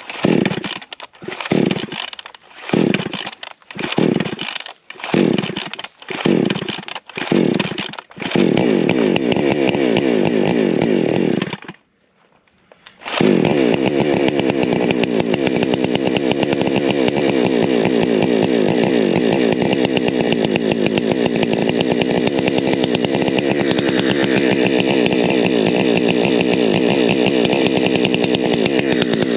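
Coocheer 6200 62cc two-stroke chainsaw cold-started on choke. Several quick pull-cord pulls in a row are followed by the engine catching and running for a few seconds. It stalls, and about a second later it starts again and runs steadily.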